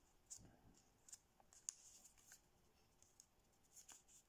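Faint crackles and rustle of thin kami paper being creased and pressed flat between the fingers, a handful of small separate ticks.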